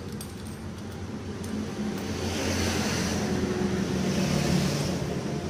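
A road vehicle going past, its engine hum and tyre hiss swelling from about two seconds in and easing off near the end. A few faint metallic clicks from the spark-plug wrench come in the first second and a half.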